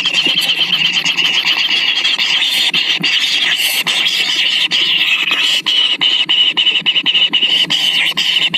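Nestlings begging, a continuous shrill chorus of rapid high-pitched calls.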